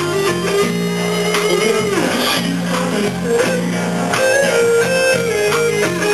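Live band playing, with guitar and bass to the fore, held and bending melody notes over a steady bass line. The recording is poor quality.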